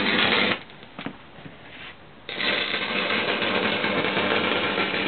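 Electric arc of a homemade inverter stick welder at 70 A with a 2 mm R117 electrode, crackling and sizzling. The arc breaks off about half a second in and is struck again a couple of seconds later, then burns steadily.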